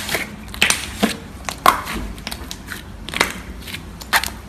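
Hands squishing and kneading a large mound of black slime, giving a run of irregular sharp sticky pops and squelches.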